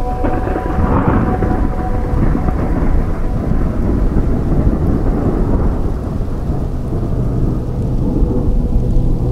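Rolling thunder with steady rain, swelling about a second in and slowly fading, with a few held tones of soft background music running through it.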